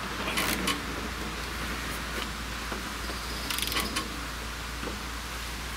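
Ratchet wrench clicking in a few short bursts as the engine mounting bolts on a riding mower are tightened, over a steady low hum.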